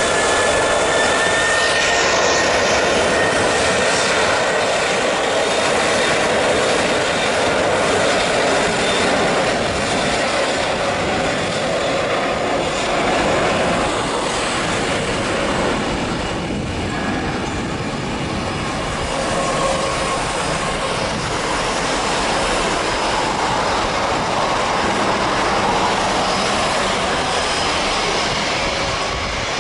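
Boeing 737 jet engines running, a steady rushing noise with a thin high whine that rises slightly near the start.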